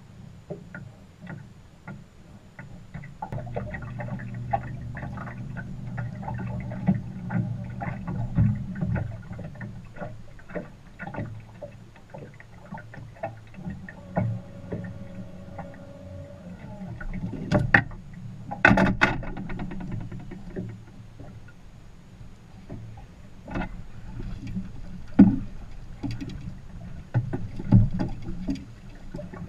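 Sounds aboard a small aluminum fishing boat on open water: a steady low rumble with many scattered clicks and knocks on the hull and gear, and two loud sharp knocks about two-thirds of the way through.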